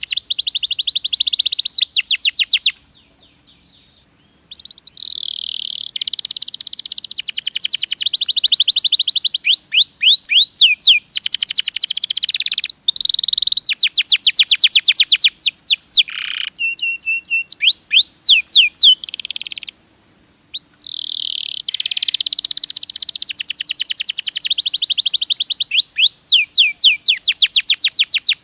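Domestic canary singing long, fast trills of rapidly repeated sweeping notes, one phrase running into the next. The song breaks off briefly about three seconds in and again about twenty seconds in.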